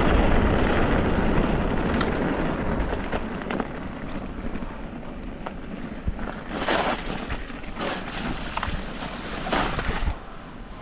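Wind rushing over the microphone as a mountain bike rolls along an icy, stony track; the rush is loudest at first and eases off after a few seconds. In the second half the tyres and bike give a handful of sharp knocks and crunches over stones and ice.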